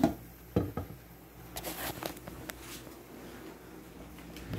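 Scattered light clicks and knocks from the phone being handled and carried, over a low steady hum.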